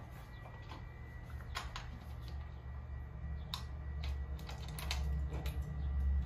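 Scattered light metallic clicks and ticks of a bolt and washer being handled and threaded by hand into a futon's metal leg plate, over a low hum that grows louder in the second half.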